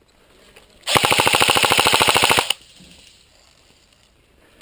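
Airsoft electric rifle firing one rapid full-auto burst, about a second and a half long, about a second in.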